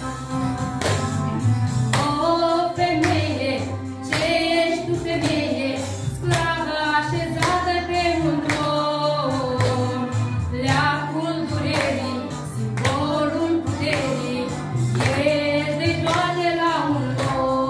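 A song sung by a woman's voice and young children together over backing music with a steady beat.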